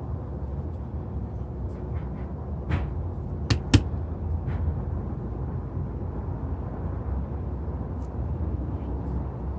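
Two sharp knocks a quarter of a second apart, about three and a half seconds in, with a few fainter ticks, over a steady low rumble. These are handling knocks from a windshield being worked into its rubber gasket.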